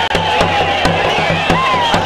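Crowd shouting and crying out over festive music with sharp drum strokes at an uneven beat and a low pulsing drone.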